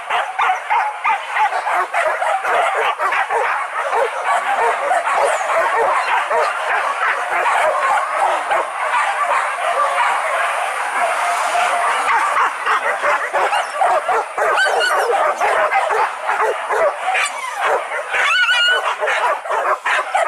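Pack of hunting dogs barking and yelping without pause, many voices overlapping.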